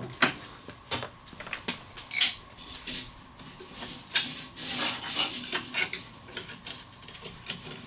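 Snap ring pliers and a pick clicking and scraping against a ball joint's steel snap ring and the A-arm, with irregular metallic clicks and scrapes, as the snap ring is worked out of its groove.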